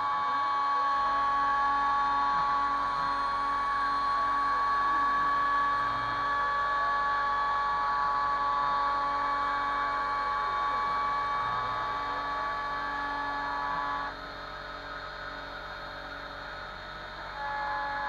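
Kress FME 800 router spindle on a Stepcraft 2/420 CNC machine milling aluminium: a steady high whine from the cutter in the metal, with the stepper motors' pitch rising and falling again and again as the axes move. About 14 s in the cutting tones stop and the sound drops to the running spindle and steppers, then the cut resumes briefly near the end.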